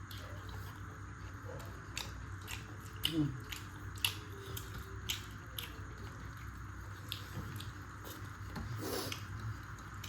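Close-up eating sounds: a person chewing and biting into chicken curry, with irregular wet mouth clicks and smacks.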